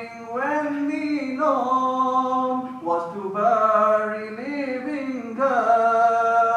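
A man's voice singing a nasheed in drawn-out phrases, holding notes and sliding between pitches.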